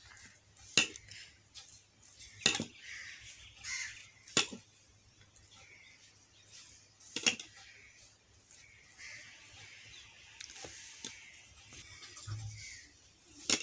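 A table knife spreading ketchup across slices of white bread makes a soft rasping scrape that comes and goes. It is broken by about five sharp taps of the knife, and there is a dull thump near the end.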